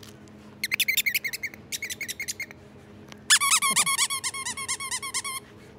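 Squeaker in a plush dog toy being squeezed rapidly over and over, about seven squeaks a second. A fainter run of squeaks comes first, then a louder run about halfway through.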